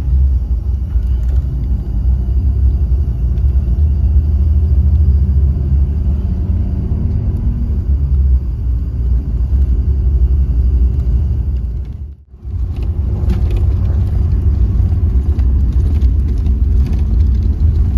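Mercedes-Benz OH 1626 sleeper bus running at speed on the toll road, a steady low rumble of engine and road noise heard from inside the cabin. The sound cuts out for a split second about twelve seconds in, then carries on unchanged.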